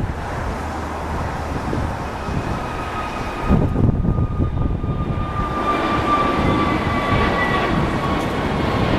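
Airbus A321neo's CFM LEAP-1A turbofan engines at takeoff power during climb-out: a steady jet roar with a high whine on top. The sound gets louder about three and a half seconds in, and the whine slowly falls in pitch.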